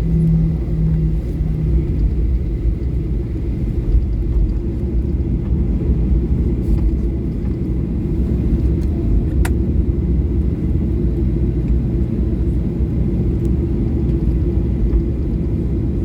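Steady low rumble inside the cabin of a Boeing 737-800 on the ground before takeoff: its CFM56 engines at low thrust while the jet taxis. A hum fades out in the first two seconds, and there is a single sharp click about nine seconds in.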